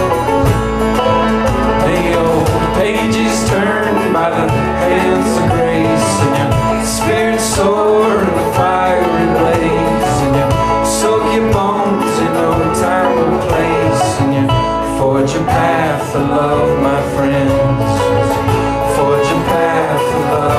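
Live acoustic folk band playing an instrumental break: strummed acoustic guitar and washboard rhythm under a string melody with bending notes.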